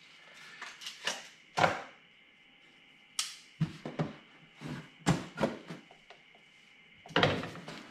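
A cardboard shipping box handled on a wooden workbench: a series of short knocks and taps, then about seven seconds in a continuous rustling and scraping of cardboard as the box is opened.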